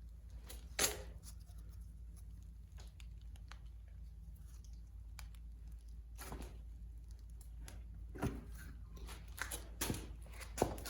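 Scattered metal clunks and scrapes a few seconds apart as the 1931 Rumely 6A's crankshaft is worked loose and lifted out of the engine block, over a low steady hum.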